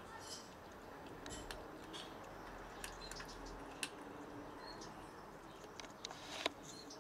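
Cats chewing dry kibble: scattered crisp crunches and clicks, with one sharper click a little before the end.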